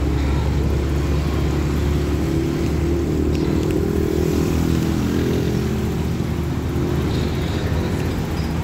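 Vehicle engine running steadily with road noise while driving, heard from inside the cab; a low hum whose pitch lifts a little around the middle.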